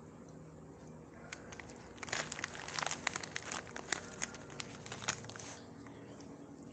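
Crinkling and rapid clicking close to the microphone, starting about two seconds in and stopping after about five and a half seconds; quiet room tone otherwise.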